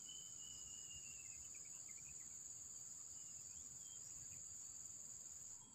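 Steady high-pitched insect drone, with a faint thin whistle in the first second or so and a few faint short chirps later.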